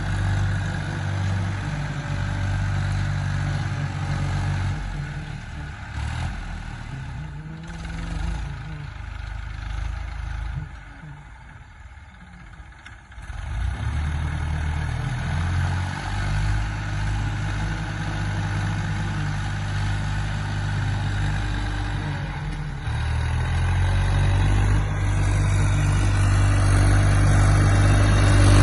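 Tractor engine running steadily while pulling a plough. It drops away to much quieter for a few seconds around the middle, then comes back and grows louder near the end.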